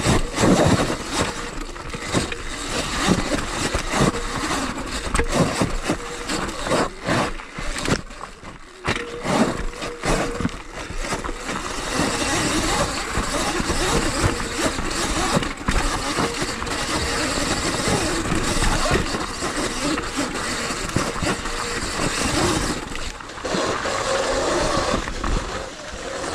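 Sur Ron electric dirt bike ridden down a rocky, rough trail: a continuous clatter of knocks and rattles from the bike and its tyres on stone and gravel.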